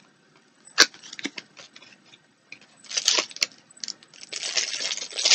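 A sharp click a little under a second in, then a clear plastic wrapper crinkling in bursts as a small wrapped item is unpacked by hand.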